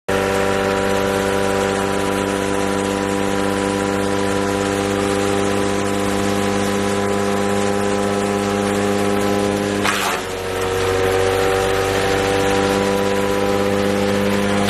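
Wood chipper's engine running at a steady speed. About ten seconds in, a short harsh burst of noise cuts across it and the engine note dips briefly, then settles again.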